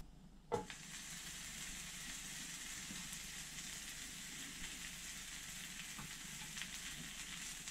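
Buttered bread sizzling butter side down in a hot frying pan, a steady hiss with small crackles, after a brief click about half a second in.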